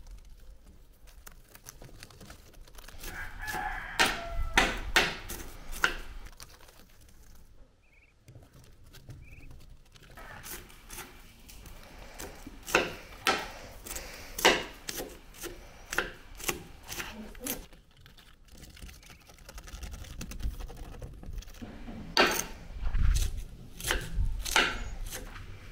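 Chef's knife chopping onion directly on a granite countertop: runs of quick, sharp knocks of the blade striking the stone, separated by quieter pauses.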